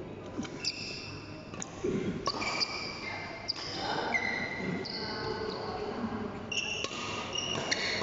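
Court shoes squeaking on a badminton court floor: many short, high squeaks one after another, with a few sharp taps among them.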